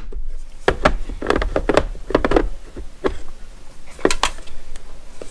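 Hard plastic DeWalt ToughCase cases clacking and knocking as a small bit case is pushed and worked into its slot in a larger organizer without seating right. It is a run of sharp clicks and knocks, with a few quick rattling clusters in the middle.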